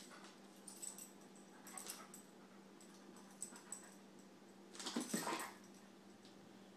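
Airedale Terrier making short play sounds as it mouths a kitten, in a few brief bursts, the loudest about five seconds in.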